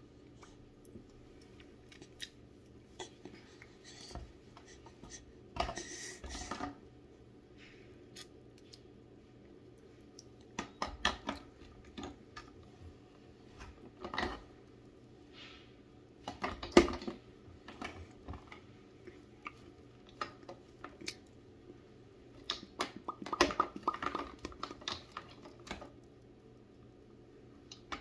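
Scattered small clicks, taps and rustles of objects being handled close to the microphone, the sharpest a single knock about halfway through and a quick run of clicks a little later, over a faint steady hum.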